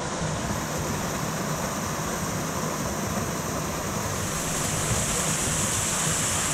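Small canyon waterfall splashing steadily into a rock pool: a constant rush of falling water that grows a little louder about four seconds in.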